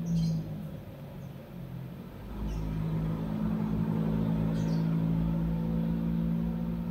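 A low, steady motor hum with a rumble beneath it, growing louder about two seconds in and then holding steady.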